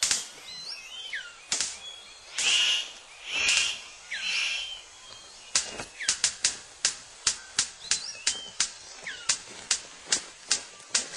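Male superb bird of paradise performing his courtship display: a few short harsh rasping bursts, then steady rhythmic clicking at about three clicks a second, with thin whistled bird calls over it.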